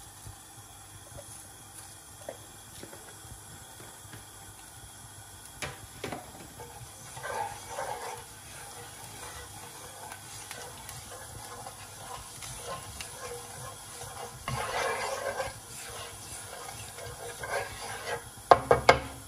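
Cumin seeds sizzling in a little hot oil in a pan, with faint scattered crackles, broken twice by louder swishing stirs and ending with a few sharp clinks against the pan.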